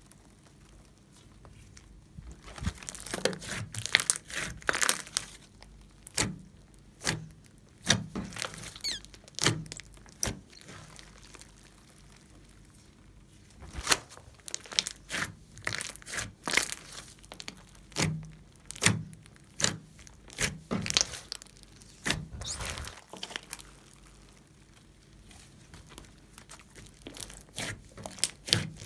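Hands squeezing, stretching and poking a large lump of glossy slime, which gives wet, irregular clicks and pops as air pockets in it burst, with a few short pauses between handfuls.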